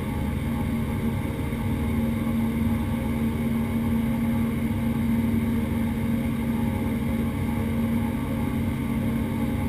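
Twin Pratt & Whitney PT6A turboprop engines and propellers of a Beechcraft King Air C90GTx running steadily, heard inside the cockpit as an even drone with a steady hum.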